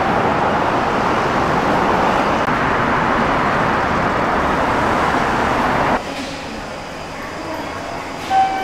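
Loud, steady running noise of an electric train moving on the track, cutting off sharply about six seconds in. Quieter station ambience follows, with a brief chime tone near the end.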